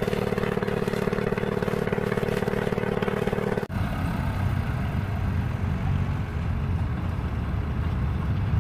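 A steady drone of even pitch cuts off abruptly about three and a half seconds in. A Swaraj tractor's diesel engine then runs steadily with a low rumble.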